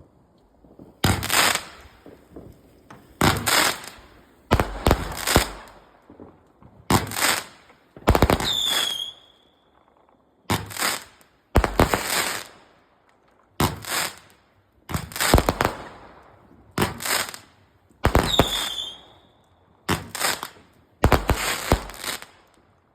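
Fireworks going off in a series of about a dozen loud bangs, one every second or two, each with a short fading tail. Twice, a bang is followed by a brief falling whistle.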